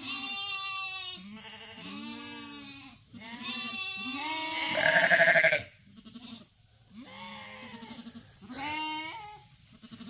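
A flock of sheep bleating, several animals calling one after another and over each other, some calls wavering. The loudest, closest bleat comes about halfway through.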